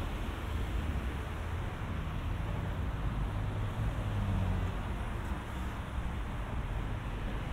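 Steady town-street ambience: a low, wavering rumble under an even hiss.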